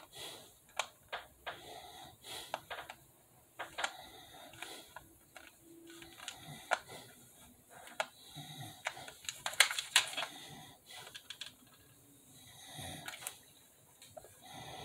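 Irregular light clicks and taps of hard plastic as a stuck battery compartment lid is pried and worked at by hand, with a few sharper clicks about ten seconds in.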